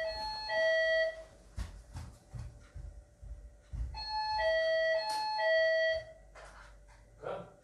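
Electronic two-tone doorbell chime: a higher note then a longer, lower one, ding-dong, at the start and twice more about four seconds in.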